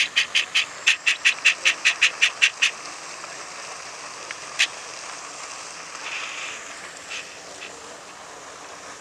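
An animal calling in a rapid, evenly spaced series of high-pitched notes, about five a second, stopping about three seconds in; after that a steady faint outdoor hiss with a single click near the middle.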